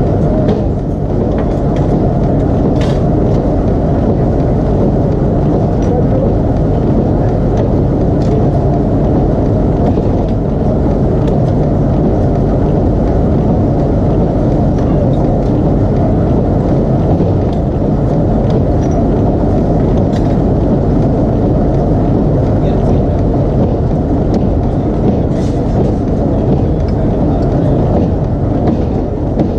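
Steady, loud rumble of forge machinery in a factory hall, with a few faint clicks scattered through it.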